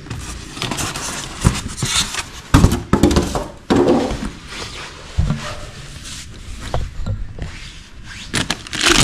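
Packaging being handled: a styrofoam packing insert and cardboard box scraping and rubbing, with plastic wrapping rustling, in irregular bursts that are loudest a few seconds in.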